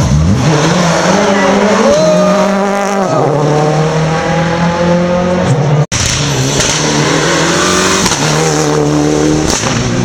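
Rally car engines at full throttle, the pitch climbing and then dropping back at each gear change. The sound cuts out sharply about six seconds in, then another car's engine comes up through its gears.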